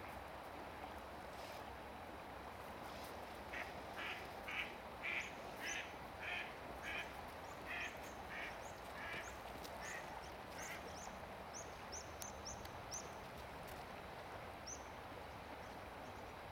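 Mallard ducks quacking: a run of about a dozen quacks, roughly two a second, starting a few seconds in and dying away after about ten seconds. Thin high chirps come alongside and after them, over the steady rush of the river.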